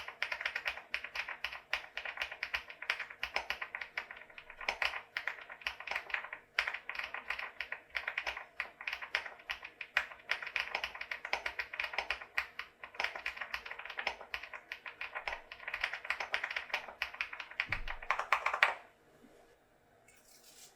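Typing on a VTER Galaxy80 mechanical keyboard with HMX KD200 film linear switches and thick PBT cherry-profile keycaps, in its stock build: a fast, continuous run of keystrokes that stops about nineteen seconds in.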